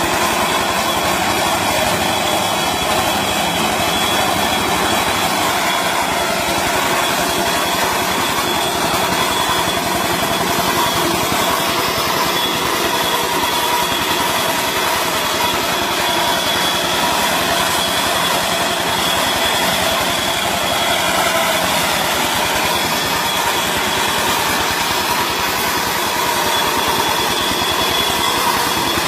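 A machine's engine running steadily at constant speed, with a steady high whine over the engine noise.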